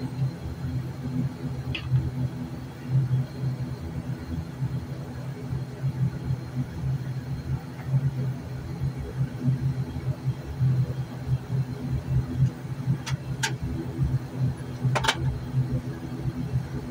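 Airliner cabin noise while taxiing: the engines at low power give a steady low rumble and hum, uneven in loudness. Two or three sharp clicks sound a few seconds before the end.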